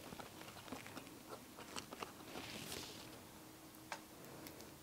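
Faint handling noises: small clicks and rustles as tubes of Korean painting colours are picked out of their box, with one sharper tick near the end.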